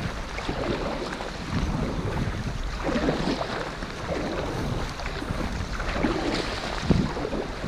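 Wind rumbling on the microphone with water splashing and lapping in uneven surges as a kayak is paddled across choppy water, with a single dull knock near the end.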